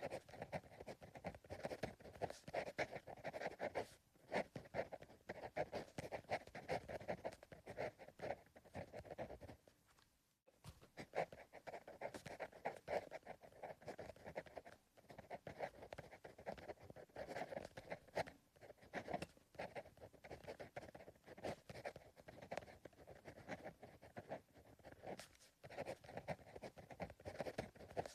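Pencil writing on paper: quick, irregular scratching strokes in runs of a few seconds, with short pauses between them and a longer pause about ten seconds in.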